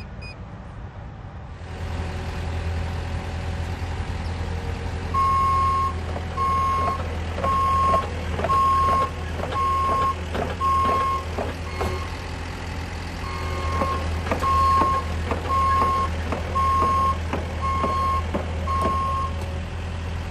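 Cat 309 Next Gen mini excavator's diesel engine throttling up about two seconds in and then running steadily under load. Its travel alarm beeps about once a second in two runs with a short pause between, as the machine tracks. Short rattles and clanks sound among the beeps.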